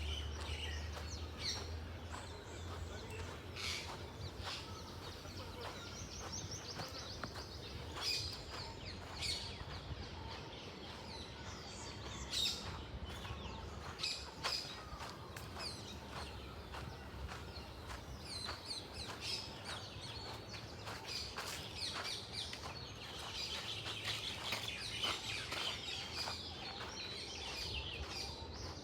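Several birds chirping and calling outdoors, short sharp calls scattered throughout and a busier run of rapid chirps near the end, over a steady low background hum.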